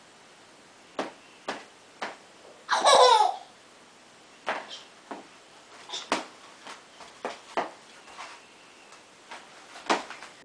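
A toddler's loud squeal, about half a second long and falling in pitch, about three seconds in, among scattered light taps and knocks on a wooden floor.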